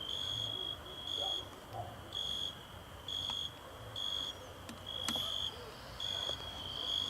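Cricket chirping at night: short, high-pitched chirps repeating about once a second.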